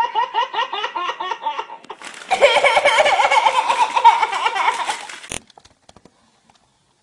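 A baby laughing in rapid, rhythmic giggles. After about two seconds a cut brings louder, hearty laughter, which stops suddenly about five seconds in.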